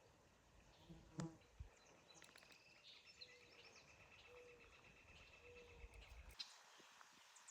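Faint summer woodland sounds: a steady high buzzing trill of rapid pulses runs for about four seconds, with a few short soft lower notes about a second apart and a light knock about a second in.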